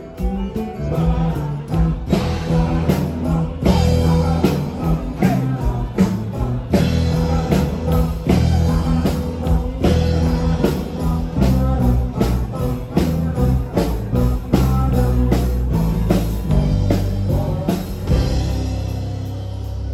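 Live rock band playing: drums keeping a steady beat under bass and electric guitar. Near the end the drum hits stop and a held chord rings on.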